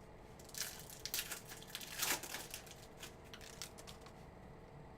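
Crinkling and tearing of a trading-card pack wrapper being opened, a run of short rustles with the loudest just before the middle.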